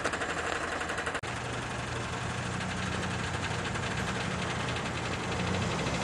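Freight train rolling slowly past close by: steel wheels running on the rails with a fast, even rattle and a steady low hum. There is a brief break in the sound about a second in.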